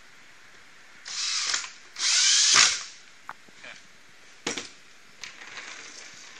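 Cordless drill driving in a screw that fastens the handle into its side bracket: two short runs, the second longer, with the motor pitch sweeping as it speeds up and slows. A few light clicks and knocks follow as parts are handled.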